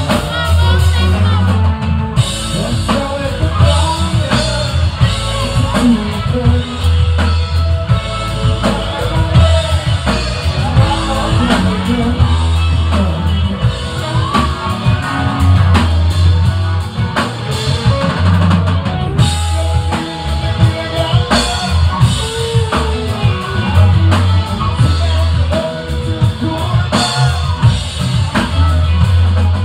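Live rock band playing electric guitars and a drum kit over a heavy bass line, with steady drum hits throughout.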